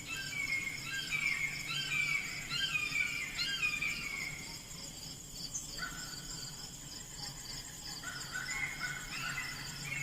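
Songbirds singing in repeated short phrases of downward-sliding notes, busy in the first few seconds and again near the end, over a steady high drone of insects.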